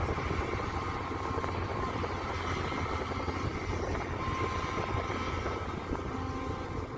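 Mini excavator engine running steadily with a low, even hum while the machine works.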